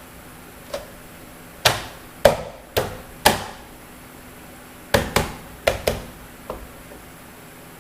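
About ten sharp knocks of hand-tool work, coming in irregular clusters, each ringing briefly. They are heard while the wheel is being refitted to the truck after a tire repair.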